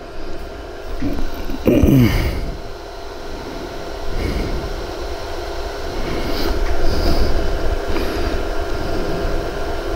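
Steady hum and low rumble of a laser welding workstation running idle, with faint clicks as small stainless steel parts are handled.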